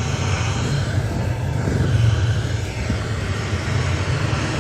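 Steady low rumble with a hiss over it, holding at an even level with no voice.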